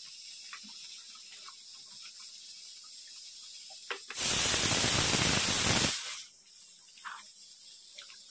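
A sudden loud, even hiss lasting under two seconds about halfway through, with a few faint clicks before and after it.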